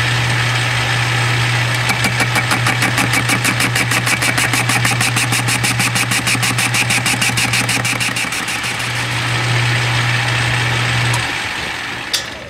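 Metal lathe running, its motor humming steadily, as the tool takes a light facing cut across a rough casting, the uneven surface giving a fast, even rhythmic chatter. About 11 seconds in the motor is switched off and the spindle winds down, with a click just after.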